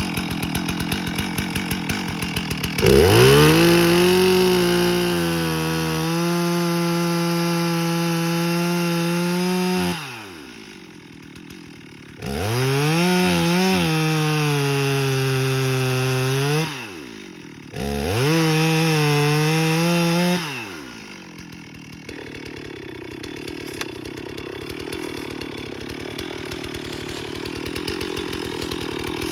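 Stihl chainsaw cutting into a dead red oak. It rises from a low idle to full throttle about three seconds in and is opened up three times in all, dropping back toward idle between the cuts. It then settles to a lower running sound for the last several seconds.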